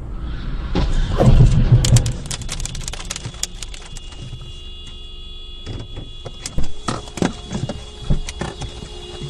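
Car crash picked up by a dashcam inside a car: a heavy low rumble with sharp impacts about a second in, then a clatter of knocks and debris. It settles into a quieter stretch with a faint steady tone, with scattered knocks near the end.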